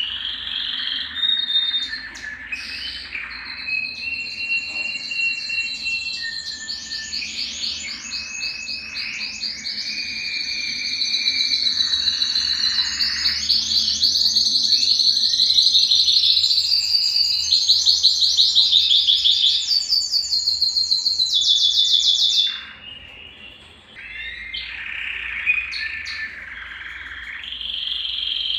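Belgian canary singing a long, continuous song of high whistled notes and very fast rolling trills. It breaks off for about a second and a half near the end, then starts up again.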